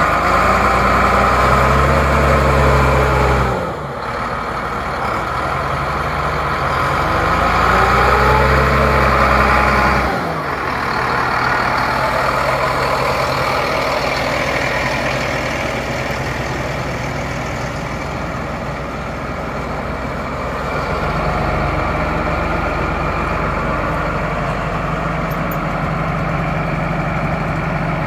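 A John Deere 8400T track tractor's six-cylinder diesel engine running. It is revved up and dropped back twice in the first ten seconds or so, then settles to a steady idle.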